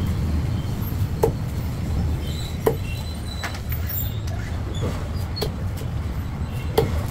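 Heavy fish-cutting knife chopping through a large fish into steaks on a wooden block, each stroke ending in a sharp knock on the wood, about six irregular chops. A steady low rumble runs underneath.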